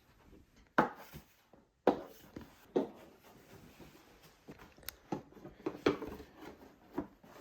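Briefcase being handled and opened: a series of sharp clicks and knocks, spread out a second or so apart, with faint handling noise between them.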